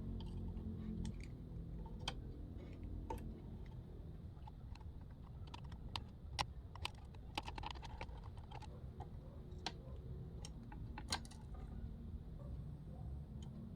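Irregular light clicks and taps of small hard parts being handled, over a low steady hum.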